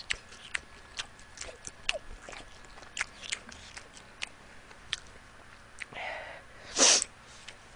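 Close-miked mouth clicks and smacks from chewing spicy chicken wings. Near the end comes a short, loud rush of breath through the nose into a tissue. Her nose is running from the heat of the wings.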